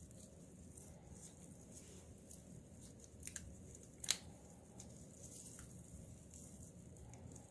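A few small, sharp clicks over faint room noise: a pair a little past three seconds in and a louder single one just after four seconds.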